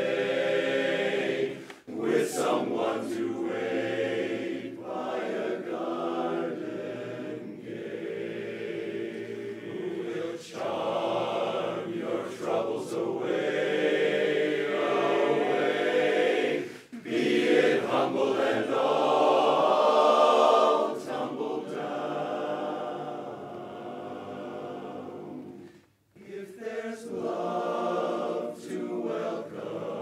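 Men's barbershop chorus singing a cappella in close four-part harmony, phrase by phrase with short breaks between phrases and one almost silent pause about 26 seconds in.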